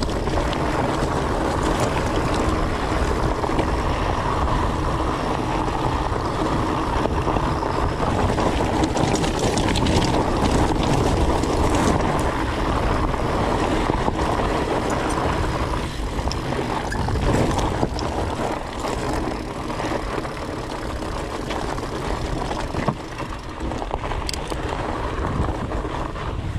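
Fat bike's 4.8-inch-wide Maxxis Colossus tyres rolling over loose gravel and rock, a steady rushing rumble with scattered clicks and rattles, mixed with wind buffeting the microphone. It eases off a little about halfway through.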